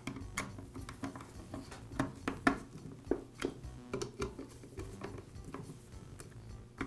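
Screwdriver tightening the ignition coil's mounting screws on a chainsaw engine, giving a run of irregular light clicks and ticks.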